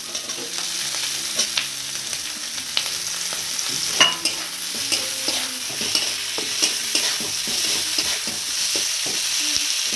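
Chopped onion and green capsicum sizzling in hot oil in a kadhai while a metal spatula stirs them. A steady frying hiss runs throughout, with scattered scrapes and clicks of the spatula on the pan and one sharper knock about four seconds in.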